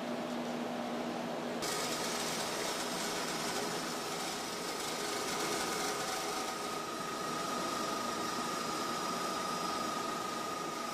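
Steady machine hum and hiss with a steady whine. About a second and a half in, the sound changes abruptly to a brighter hiss with a higher steady whine.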